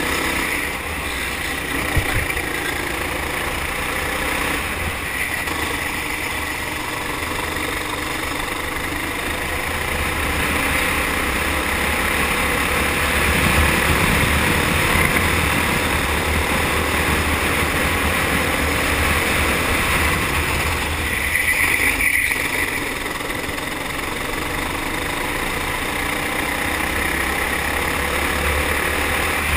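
Four-stroke kart engine running at speed, heard from an onboard camera on the kart, the sound swelling and easing as it goes.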